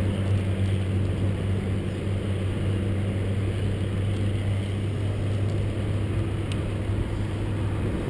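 Wind and road noise on a bicycle-mounted camera while riding, with a low, steady engine hum of road traffic that fades away after about three seconds.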